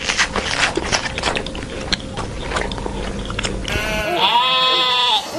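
A run of irregular clicks and rustling, then near the end one long bleat from a farm animal.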